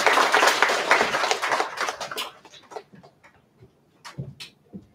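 Audience applauding; the clapping dies away about two seconds in, leaving a few faint scattered knocks and shuffles.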